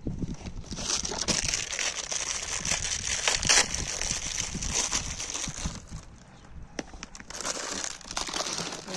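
Plastic treat packet crinkling and rustling, a dense crackle that keeps going, drops back briefly about six seconds in, then starts again.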